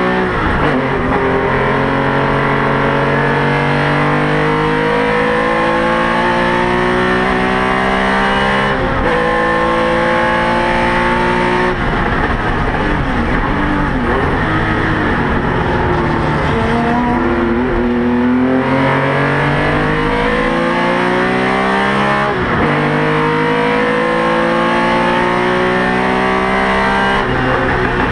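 Porsche 911 RSR's flat-six racing engine heard from inside the car at full throttle, its pitch climbing through the gears with several quick upshift breaks. Midway it drops in pitch through downshifts under braking for a corner, then winds up again.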